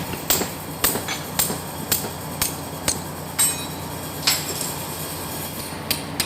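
Hammer blows on metal, sharp ringing knocks about two a second for some four seconds, then two more near the end, while a steering gear box is being dismantled.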